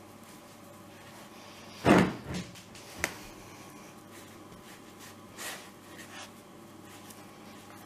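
Dough being kneaded and thumped by hand on a wooden pastry board: one loud thud about two seconds in, a softer knock right after, a sharp click a second later, and a few lighter knocks near the end.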